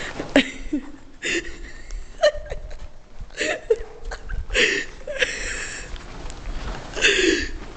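People laughing and snickering in short bursts, about seven in a row, with pitch sliding up and down.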